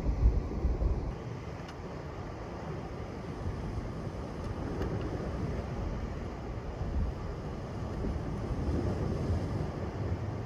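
Steady low rumble of wind on the microphone and sea surf against the rocks. It is louder and gustier in the first second.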